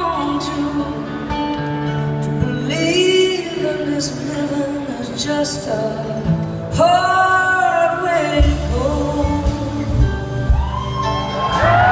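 Live band music: a woman singing a slow ballad over acoustic guitar and band accompaniment, with strong low bass notes coming in about eight and a half seconds in.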